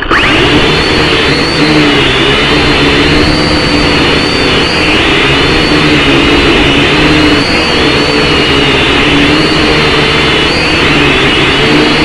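Small RC quadcopter's electric motors and propellers buzzing up close, the pitch wavering up and down continuously as the motors change speed.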